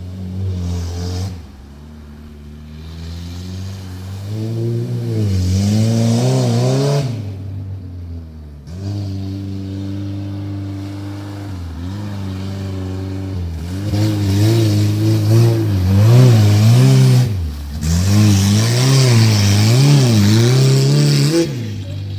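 Suzuki Samurai's four-cylinder engine revving hard over and over while driving through mud, the pitch repeatedly climbing and dropping under load, loudest in the second half.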